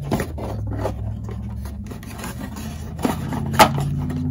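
Camera box and accessory packaging being handled: rubbing and scraping with a few sharp clicks and knocks, the loudest a little before the end, over a low steady hum.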